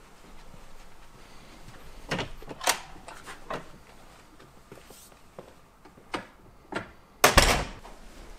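Door handling in a room: a few scattered clicks and knocks, then a loud thump about seven seconds in.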